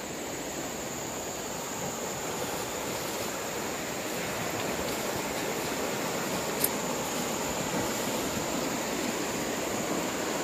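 Swift, high-running muddy river rushing over shallow rapids: a steady rush of water that grows a little louder as it goes on. A single sharp click about six and a half seconds in.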